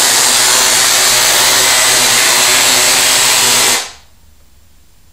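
Tesla coil firing, its sparks giving a loud, steady, harsh buzzing hiss that cuts off suddenly about four seconds in.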